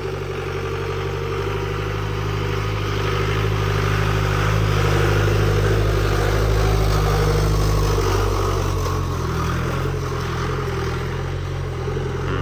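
A four-wheel-drive jeep's engine pulling hard up a steep off-road track, growing louder toward the middle and then easing off a little in the second half.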